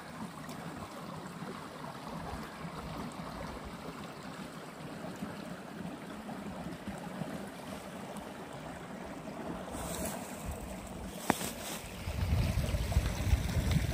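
Small shallow creek running and babbling over rocks, a steady rush of water. Near the end a louder low rumble comes in on the microphone.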